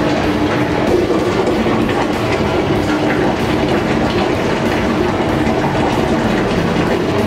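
Brewhouse pump and equipment running while the mash is pumped across into the lauter tun: a steady mechanical noise with a constant hum.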